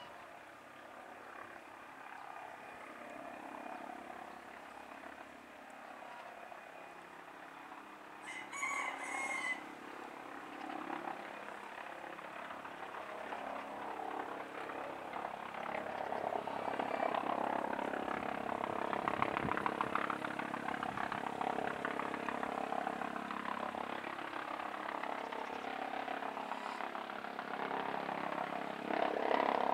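MD 902 Explorer twin-turbine NOTAR helicopter approaching, its sound growing steadily louder. A rooster crows once, about eight seconds in.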